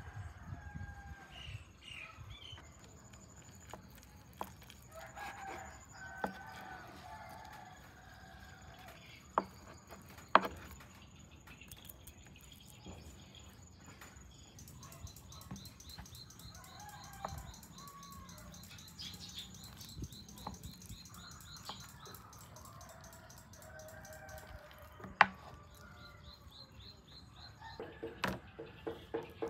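Chickens clucking and calling on and off, with a few sharp knocks, the loudest about ten seconds in and near the end. A high thin steady sound runs beneath, turning into a fast high ticking about halfway through.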